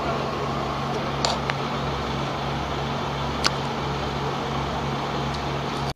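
Boat engine running steadily: a constant low drone under a wash of noise, with two small clicks about one and three and a half seconds in. It cuts off suddenly near the end.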